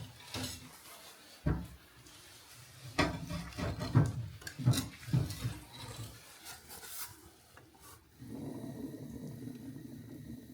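Pieces of firewood and kindling being handled, knocked together and scraped as a fire is laid, with a run of sharp knocks and rubs. About eight seconds in, a steadier low rushing sound begins.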